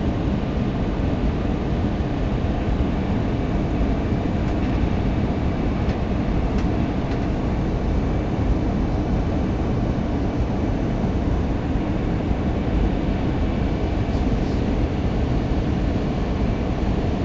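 Steady cabin noise of an airliner in flight: engine and airflow noise heard from inside the cabin, even and heavy in the low end, with a faint steady high whine through the middle.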